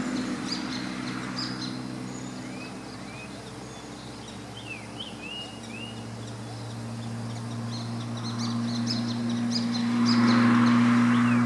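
Small birds chirping and calling by a highway over a steady low hum of traffic. Road noise fades away at first, then a car approaches and passes close near the end, loudest about ten seconds in.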